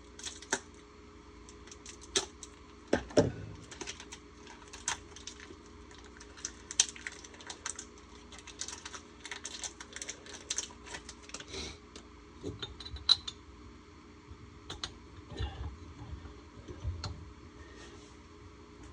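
Irregular light metallic clicks and taps of small engine parts being handled while a piston and wrist pin are fitted to a two-stroke engine's connecting rod, with a duller knock about three seconds in and a sharp click about thirteen seconds in. A faint steady hum runs underneath.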